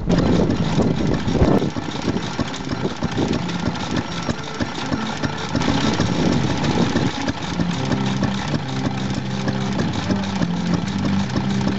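Vintage stationary engines running, with the clatter of belt-driven machinery. About halfway through, a steady hum of several tones sets in alongside the engine beat.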